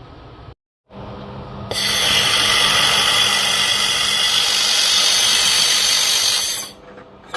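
Leapion 1.5 kW handheld fiber laser welder running a weld: after a low machine hum, a loud steady hiss starts about two seconds in and lasts about five seconds, then stops. A single sharp click follows near the end.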